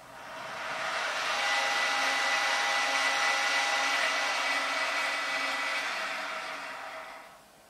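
Skywatcher AZ GTI mount's motors slewing the telescope: a steady electric whir with a high whine, building up over about the first second, holding, and fading out near the end.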